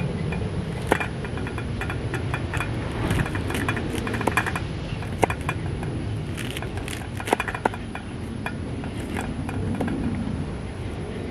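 A knife chopping leafy-green stalks on a wooden cutting board: irregular sharp taps, a few of them louder, over a steady low rumble.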